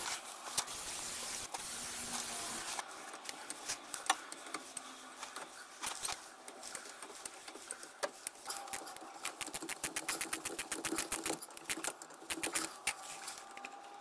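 Aerosol can hissing as it sprays the drive shaft bolts at the differential, then a ratchet clicking rapidly in quick runs over the second half, with a few scattered knocks of tools on metal in between.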